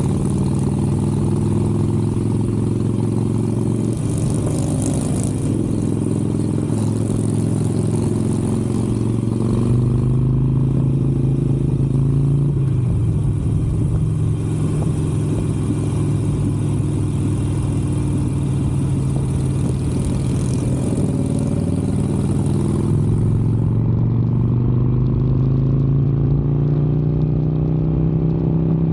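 Harley-Davidson Sportster 883's V-twin engine running under way on the road, its note dipping and rising with the throttle and climbing steadily near the end as it accelerates.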